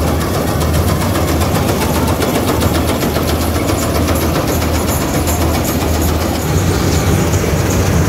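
NSG 930 combine harvester running steadily while harvesting, its diesel engine making a low drone with a fast, even clatter from the cutting and threshing machinery over it.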